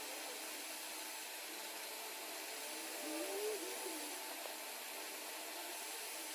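Steady blowing hiss of a hot-air rework station used to desolder and replace surface-mount resistors on a circuit board. A short faint wavering tone rises and falls about three seconds in.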